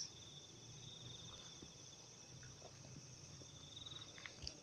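Faint, steady high trilling of insects, a fast pulsing trill that swells and fades, with a soft knock near the end.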